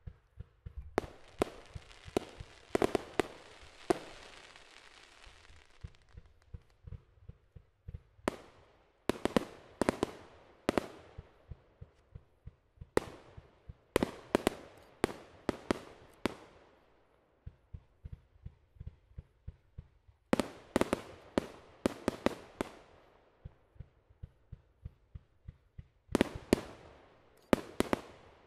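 Aerial fireworks going off in five quick volleys of low launch thumps and sharp bursting reports. A hiss runs through the first volley.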